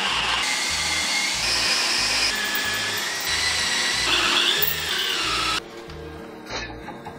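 Cordless drill boring into a steel bolt head held in a bench vise, running steadily with its pitch shifting under load, then stopping suddenly about five and a half seconds in. A few light metal clicks follow, over background music.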